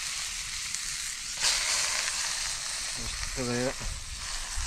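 Meat sizzling in oil on a hot stone slab: a steady high sizzle that flares up suddenly about a second and a half in.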